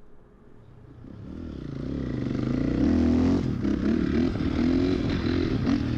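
Honda CRF dirt bike engine pulling away. It grows louder over the first three seconds, then keeps running with its pitch rising and falling as the throttle is worked.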